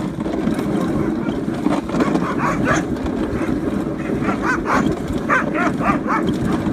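Huskies barking and yipping, a rapid run of short calls starting a couple of seconds in, over the steady low rumble of the sled running on snow.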